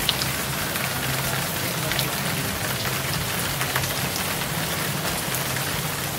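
Water falling in streams from a ceiling water-curtain fountain and splashing down: a steady rain-like hiss with scattered sharp drop ticks.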